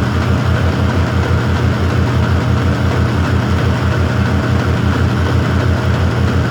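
A loud, steady low machine hum that pulses evenly, about seven times a second.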